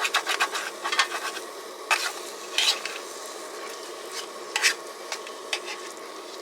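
A rubber spoon stirring and scraping food around a mess tin in short, irregular strokes and taps, over the steady hiss of a gas stove and the food sizzling. The food is starting to stick to the bottom of the tin.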